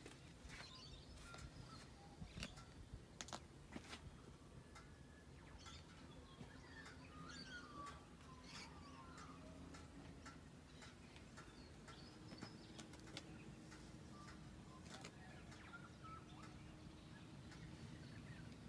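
Near silence outdoors, with faint birds chirping now and then and a few faint clicks.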